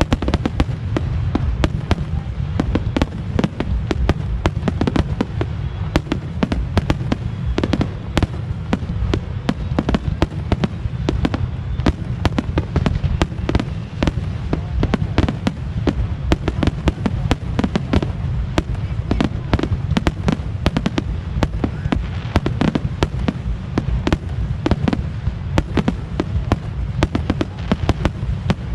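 Fireworks display going off in rapid succession, many sharp bangs and crackles overlapping with hardly a pause, over a steady low rumble.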